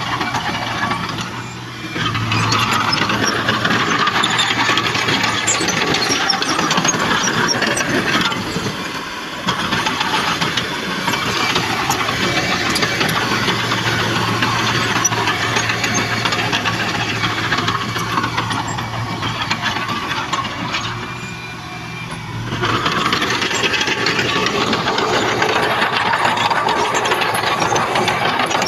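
Heavy earthmoving machinery running, its diesel engine held steady with a constant low hum and a clatter of mechanical noise. It eases off briefly three times, near the start, about a third of the way in and about three-quarters through.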